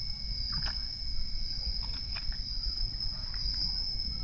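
Crickets trilling steadily in one continuous high-pitched tone, over a low rumble, with a few faint clicks and scrapes in the first half.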